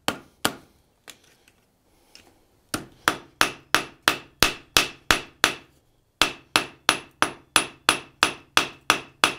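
Blacksmith's hand hammer striking hot sheet iron on a steel anvil while forging the tail of an iron butterfly. Two blows, a lull with a couple of light taps, then two runs of steady, ringing blows about three a second, with a short break between them.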